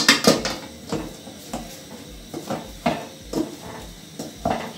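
Wooden cooking spoon knocking and scraping against an aluminium pot while thick ugali (stiff maize-flour porridge) is stirred and pressed, about eight irregular knocks with the loudest right at the start. The ugali is nearly cooked.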